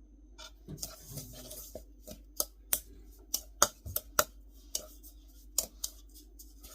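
A utensil stirring dry flour, sugar and salt in a mixing bowl: soft scraping at first, then a run of sharp clicks against the bowl, about three a second.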